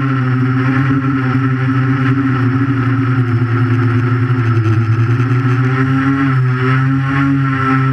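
Electric motors and propellers of a 3D quadcopter buzzing right beside the camera: a loud, steady multi-tone hum that wavers slightly in pitch as the throttle changes.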